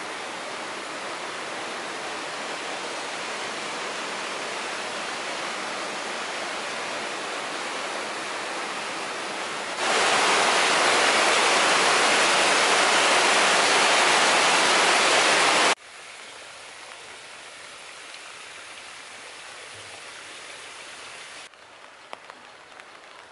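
Water rushing steadily, loudest for about six seconds in the middle where a small waterfall splashes over mossy rocks, then cutting off suddenly. Near the end, quieter steady rain with a few sharp drips.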